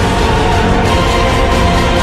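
Background music with sustained held chords over a steady low end.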